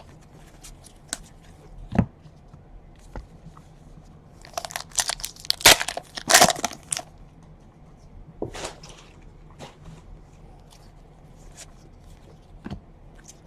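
Trading card packs being opened and handled: scattered light clicks and taps of cards, with a spell of wrapper tearing and crinkling midway.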